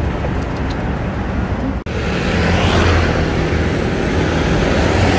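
Road traffic: a motor vehicle's engine running close by, a steady low rumble that swells in the middle as it passes. The sound cuts out for an instant just before two seconds in.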